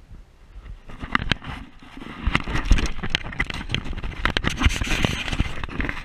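Handling noise from a GoPro being grabbed and turned around by hand: irregular knocks, scrapes and rustling as it brushes against a shirt, starting about a second in.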